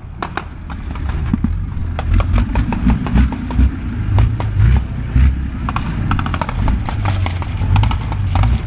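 Scattered small-arms gunfire, cracking many times, over a heavy, continuous low rumble that builds over the first second.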